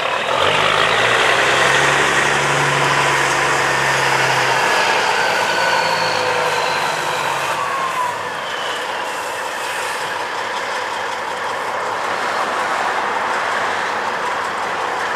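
Semi-truck passing close by at a railroad crossing: loud diesel engine and tyre noise. A low engine note stands out in the first few seconds, then gives way to a steady rush as the truck rolls on.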